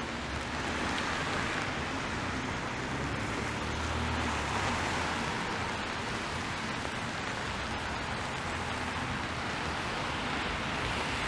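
Steady hiss of rain and traffic tyres on a wet city street, with a low vehicle rumble that swells about four seconds in.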